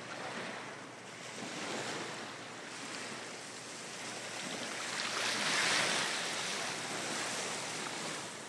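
Small waves lapping and washing in calm sea water, a steady hiss of water that swells louder about two-thirds of the way through.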